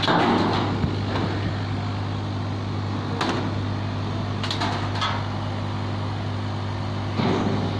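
Steady low hum from a 100 W CO2 laser cutting machine, with a few brief scrapes and clacks as cut acrylic pieces are handled on its slatted table.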